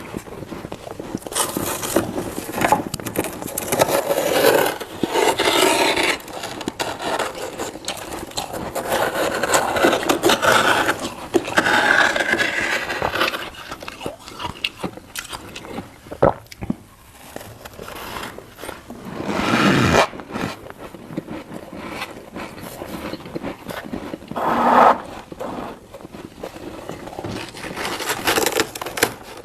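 Humidifier frost being crunched and scraped, in irregular noisy stretches with short pauses and a few sharp crackles.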